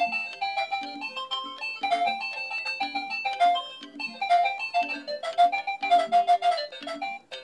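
Doraemon toy cash register playing one of its built-in electronic songs: a simple beeping melody over a repeating bass figure, with almost no deep bass. The tune breaks off briefly near the end and starts again.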